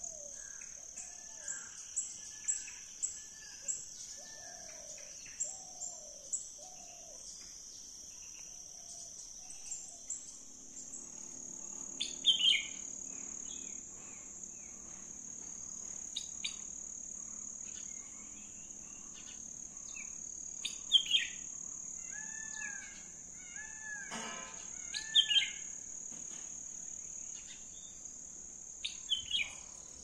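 Several wild birds calling over a steady high insect drone, like cicadas or crickets. A run of short falling notes comes in the first few seconds. Loud chirps come in clusters about a third of the way in, twice more past the two-thirds mark, and again near the end.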